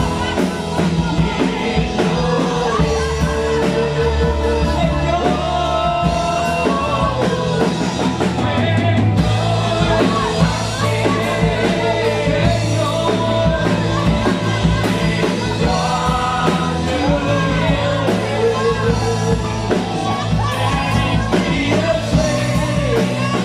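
Live worship music: a band with bass, drums and guitar playing under singing voices.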